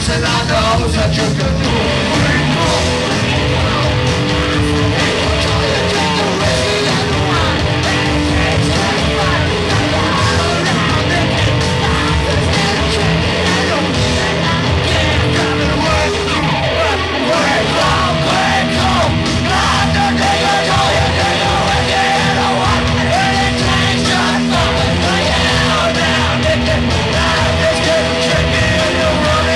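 Live rock band playing loud and steadily, with electric guitar and yelled singing.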